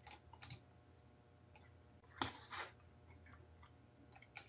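Near silence: room tone with a low hum and a few faint clicks, two near the start and two more about two seconds in.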